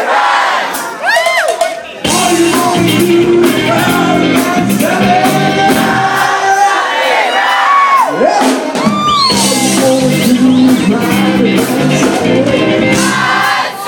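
Male singer singing into a microphone over a live band with drums, his voice swooping up and down in pitch and holding long notes.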